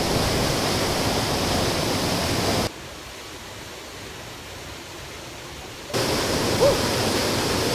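Waterfall: the steady rush of falling water. About a third of the way in it drops abruptly quieter and duller for about three seconds, then comes back at full strength. A short high note sounds near the end.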